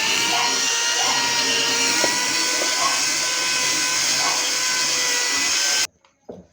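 Electric power sander running steadily with a high whine, sanding the putty on a wooden speaker cabinet; it stops abruptly near the end.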